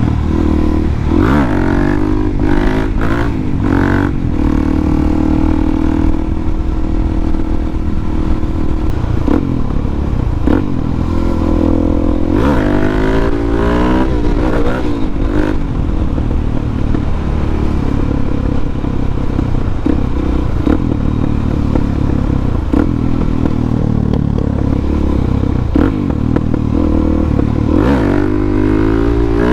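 Harley-Davidson Dyna's V-twin engine running as the motorcycle is ridden. Its pitch rises and falls with throttle and gear changes a second or two in, about halfway through, and again near the end.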